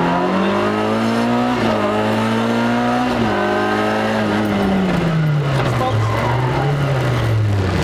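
Rally car engine heard from on board, revving up through two gear changes, each a sudden drop in pitch, then falling away as the car slows.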